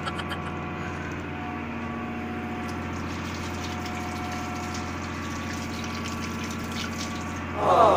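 Tap water running steadily into a stainless steel sink, splashing over crabs held under it by hand to rinse them, over a constant low machinery hum.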